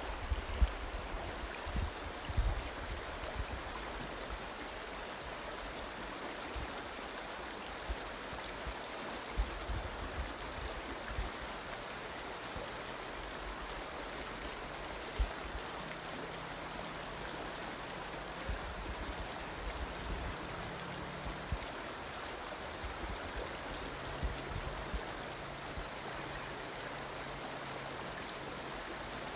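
Steady rush of a river running over a shallow, stony riffle. Occasional low thumps are mixed in, most of them in the first few seconds.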